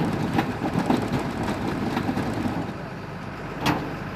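Tow truck running with a steady rumble and irregular clanks and rattles, with one sharp clank near the end.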